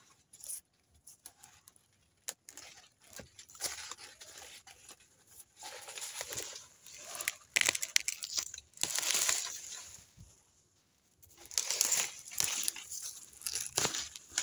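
Rustling and crunching of dry leaves and loose soil as a rooted plant stalk is handled and set into a planting hole, in irregular bursts that are loudest around the middle and again near the end.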